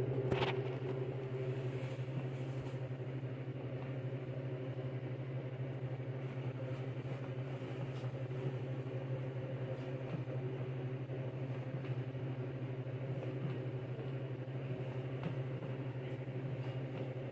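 A steady low mechanical hum, with a few faint taps.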